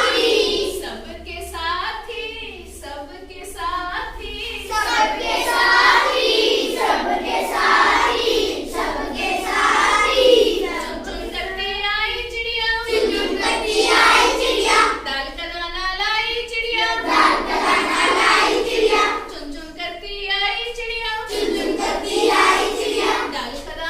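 Children singing a Hindi children's rhyme together in chorus.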